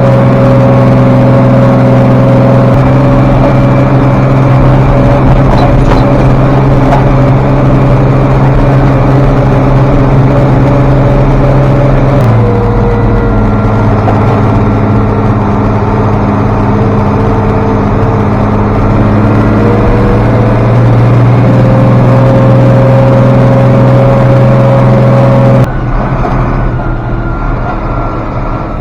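International Harvester 5288 tractor's diesel engine running steadily, heard loud from the cab. Its pitch drops about twelve seconds in and climbs back a few seconds later, and near the end it drops suddenly as the throttle is let off.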